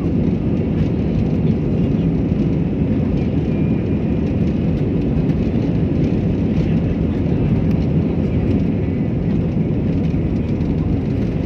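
Airbus A320-216's CFM56 engines and the rolling wheels heard from inside the cabin as the jet rolls down the runway: a loud, steady, deep rumble.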